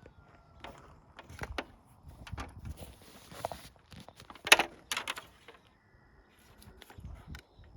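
Scattered knocks and clicks of handling at the truck, with one loud sharp clack about four and a half seconds in.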